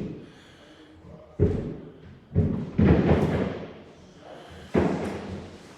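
About five dull, heavy thumps at irregular intervals, each sudden and dying away over a fraction of a second, the loudest cluster near the middle.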